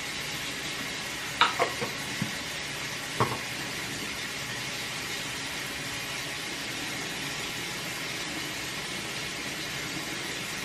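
Steady hiss of room noise, with a few light clicks and knocks, likely a plastic skincare jar being handled and set down, between about one and three seconds in.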